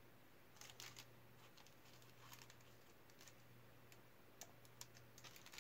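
Faint scattered clicks and short rustles of wax paper being handled as a thin balsa-wood strip is set in place inside it, over a low steady hum.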